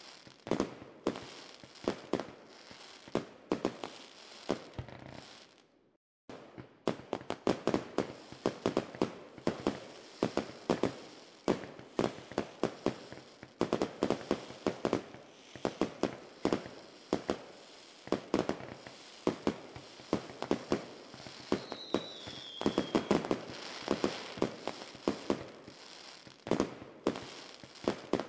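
Fireworks display: a dense, irregular string of bangs and crackles, several a second, with a short falling whistle a little past the middle. The sound cuts out completely for about half a second around six seconds in.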